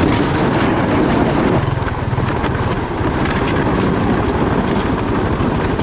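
ATV engine running as it tows a sled across bare ice, with the sled scraping and rattling over the ice.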